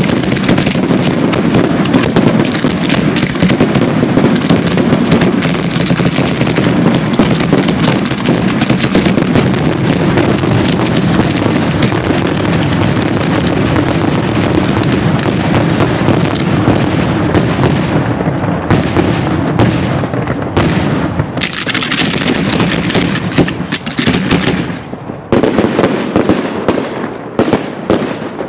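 Fireworks finale fired at close range: a dense, continuous barrage of rapid launches and bangs. After about 18 seconds it thins into separate bursts, with a few last bangs near the end.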